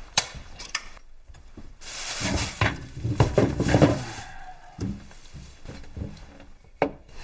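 A plastic bottle of cola being handled and opened: a few clicks from the cap, then a hiss of fizz lasting about two seconds.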